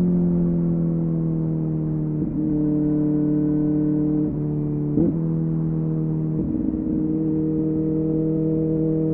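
Kawasaki ZX-4RR's 399 cc inline-four running through a Yoshimura AT2 slip-on exhaust, holding a steady high engine note. It has brief breaks where the pitch steps, about two, four, five and six-and-a-half seconds in.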